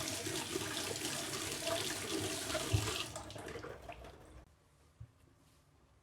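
Water running from a kitchen tap into a sink, tapering off and stopping about four and a half seconds in, followed by a single soft knock.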